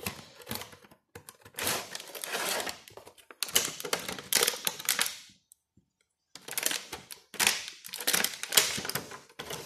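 A cardboard box being opened and a clear plastic bag crinkling as a thermometer is pulled out of its packaging: irregular rustling with clicks and taps, in bursts, with a brief pause about halfway through.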